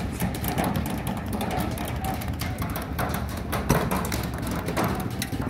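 Paintball markers firing, many irregular sharp pops several times a second, over a steady low rumble.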